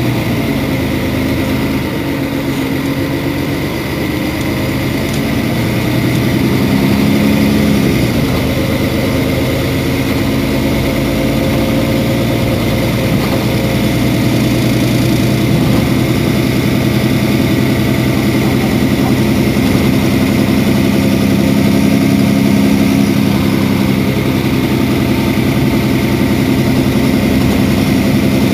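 Mercedes-Benz Citaro Facelift city bus engine idling steadily. Its pitch wavers slightly in the first several seconds, then holds.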